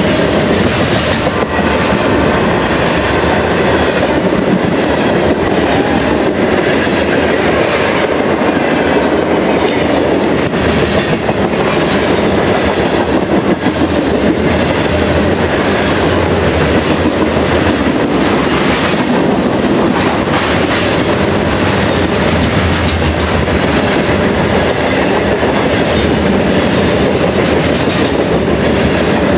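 Freight train of covered hopper cars rolling past at close range: a steady rumble of steel wheels on rail with clickety-clack over the rail joints.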